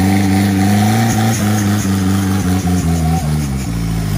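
Off-road 4x4 vehicle's engine revving hard and held at high revs, with the pitch dropping back in several short steps through the second half.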